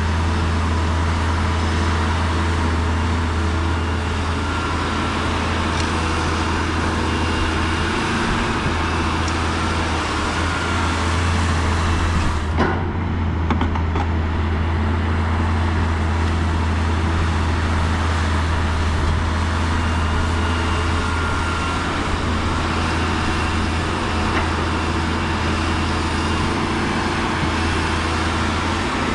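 Heavy diesel earthmoving machinery running steadily under load, with a deep, even engine drone. There is one brief knock a little under halfway through.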